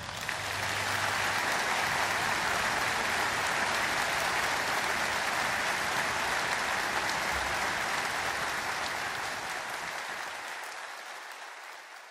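Applause from a large audience, steady at first and fading out over the last few seconds.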